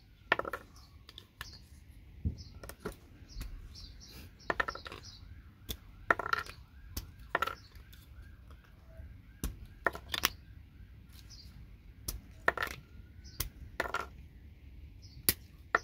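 Irregular clicks, snaps and light clatter of small plastic and metal parts as plastic pieces are pulled off a network patch panel's connectors and handled on a hard surface.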